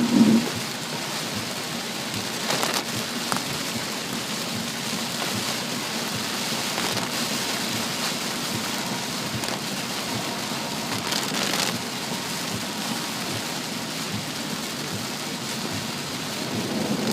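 Heavy rain falling steadily on a car driving through a flash flood, with two brief louder swishes, about two and a half and eleven seconds in.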